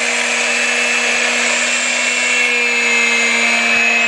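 Vacuum cleaner running steadily with a high-pitched whine over its motor hum; the whine dips slightly in pitch about two and a half seconds in.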